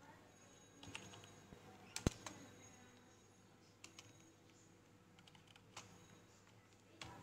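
Faint, scattered computer keyboard keystrokes and clicks, a handful spread over several seconds, the sharpest about two seconds in.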